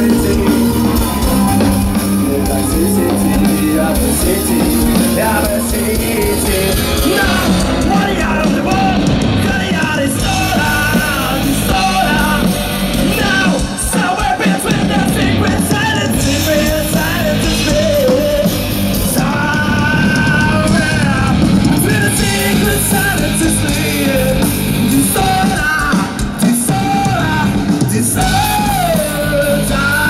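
Rock band playing live through a concert sound system, with a male singer's vocals coming in about a quarter of the way through.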